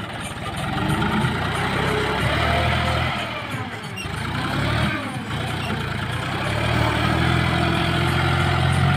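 John Deere 5036D tractor's diesel engine running hard as its front loader digs into sand and lifts a full bucket. The engine note rises and falls with the throttle.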